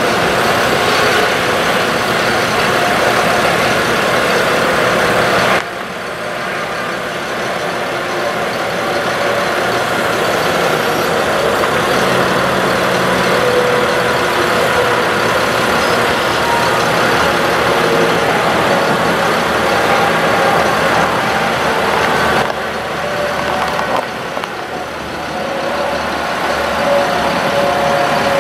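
Ford F-750 truck engine running steadily with the PTO engaged, powering the hydraulics of the Lift-All bucket boom as the boom is moved. The level drops suddenly about five and a half seconds in and slowly builds back, then dips again a little after twenty-two seconds.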